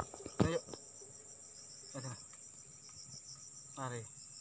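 Steady high-pitched chorus of insects buzzing, with three short sounds falling in pitch about every two seconds.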